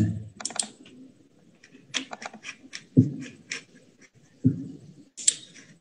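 Scattered clicks and taps of a computer keyboard and mouse, with two duller knocks about three and four and a half seconds in.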